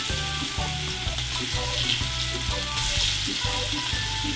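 Pieces of marinated lamb sizzling steadily as they fry in hot curried oil in a stainless steel pot. A tune with a bass line plays underneath.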